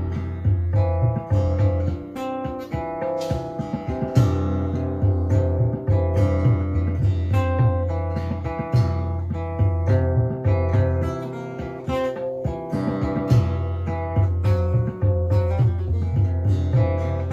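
Instrumental music on a strummed and picked acoustic guitar, with a steady low bass line.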